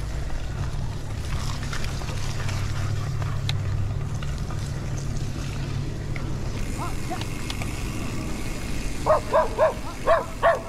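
Steady low rumble of a car driving, engine and tyre noise. Near the end a dog barks about five times in quick succession, louder than the rumble.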